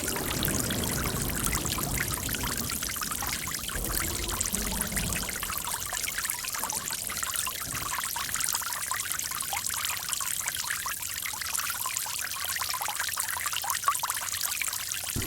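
Running water trickling and splashing steadily, with a fuller, deeper gurgle in the first five or six seconds.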